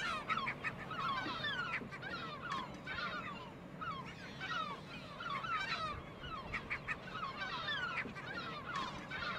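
Breeding colony of gulls calling: a steady chorus of many short, overlapping calls, each quickly rising and falling in pitch.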